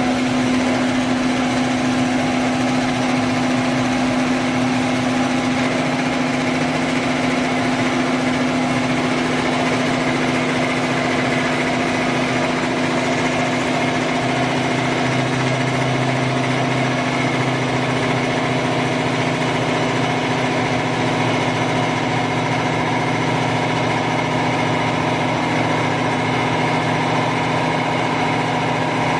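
Kotec Newrun 10DX H-beam drilling line running with a steady machine hum; a lower hum joins about halfway through.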